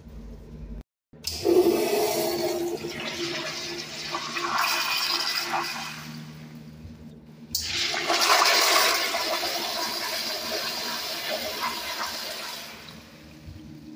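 Two flushes of American Standard Everclean Madera toilets, each a loud rush of water lasting about five seconds. The second starts abruptly about halfway through after a brief gap. The uploader calls this a blowout flush.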